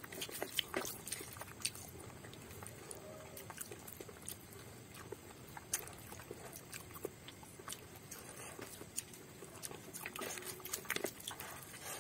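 Close-up eating sounds: irregular wet mouth clicks and smacks from chewing, with fingers squishing rice mixed with chicken curry.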